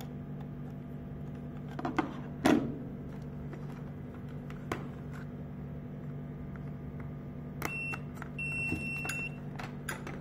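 Clicks and a knock as small cable plugs are fitted into the units, then the video intercom beeps: one short beep and, a moment later, a longer beep of about a second, about three-quarters of the way in. A steady low hum sits underneath.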